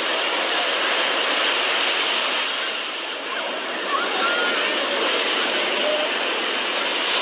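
Surf breaking and washing up on a sandy beach, a steady rushing hiss, with faint distant voices of people in the water.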